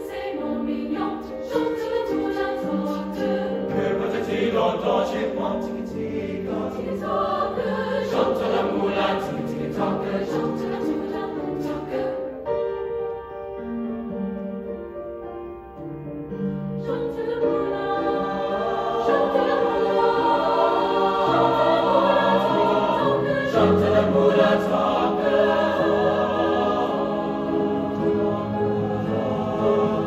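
Mixed choir singing with grand piano accompaniment. About halfway through the singing thins and softens, then swells back to its loudest, fullest sound.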